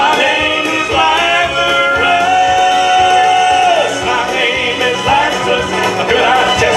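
Male gospel vocal group singing in harmony, with one long held note from about two seconds in to nearly four seconds.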